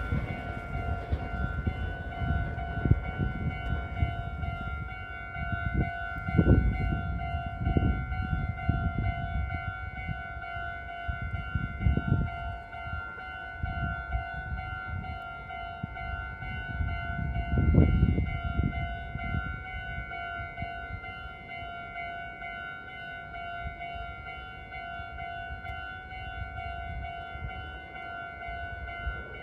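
Japanese level-crossing electronic warning bell ringing steadily in a repeating 'kan-kan' pattern, while a Meitetsu train rumbles across the crossing with loud surges of wheel noise that die down about twenty seconds in.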